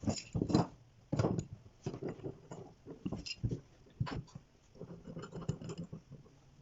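Irregular knocks and short scrapes of workshop handling, a dozen or so sharp hits spread unevenly, the loudest in the first second and a half.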